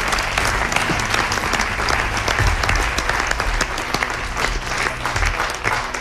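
Studio audience applauding: a dense, steady patter of many hands clapping.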